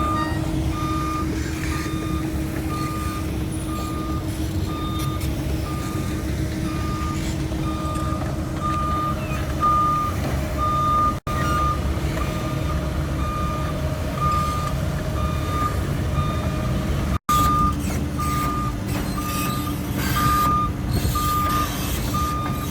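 CAT 307 amphibious excavator's diesel engine running steadily while its warning alarm beeps over and over, about one and a half beeps a second. The sound cuts out for an instant twice, near the middle and again later.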